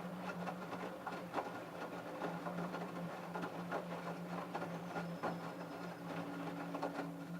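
LG F1222TD direct-drive washing machine running its prewash: a steady motor hum, with irregular soft knocks and swishes from the load in the drum.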